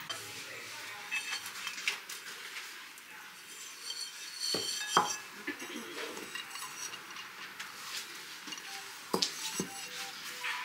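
Bisque-fired ceramic bowls clinking and knocking against each other and the table as they are handled and set down, with a few sharper knocks about halfway through and again near the end.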